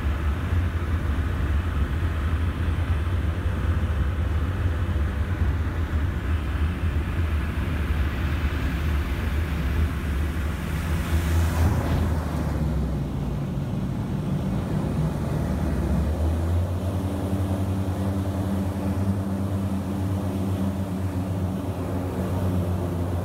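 Cabin noise of a de Havilland Canada DHC-6 Twin Otter's turboprop engines and propellers during landing: a loud steady drone on approach, a brief swell of noise about halfway through around touchdown, then from about two-thirds in a lower, steadier hum as the plane rolls out and taxis.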